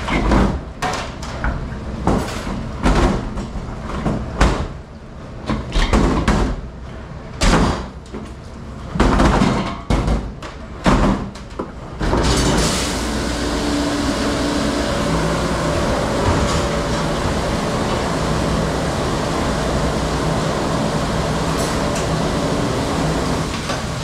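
A large stainless steel pot knocking and clanging against steel counters and a dish rack as it is handled. About halfway through, a commercial hood-type dish machine starts its wash cycle with a sudden onset: a steady rush of spraying water over a low pump hum.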